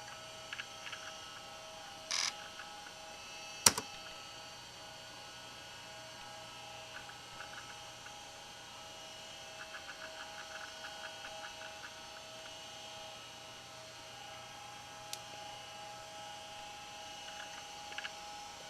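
Steady electrical hum from a rebooting laptop. A sharp click comes about four seconds in, and runs of faint rapid ticking come and go, most densely in the middle, typical of a laptop hard drive seeking.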